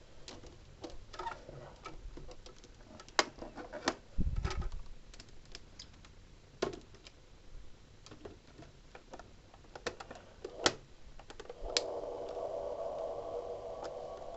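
Scattered light clicks and knocks, likely toys being moved and handled on a hard surface. Near the end a steady hum with several tones starts and keeps going.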